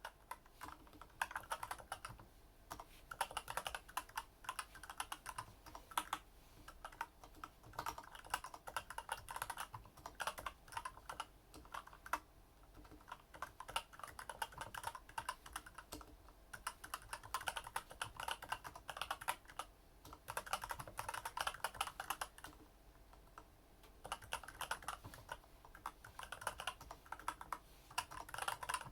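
Typing on a Varmilo mechanical keyboard with Daisy switches and PBT keycaps damped by rubber silencer rings: rapid runs of soft key clacks in bursts of a second or two, with short pauses between runs.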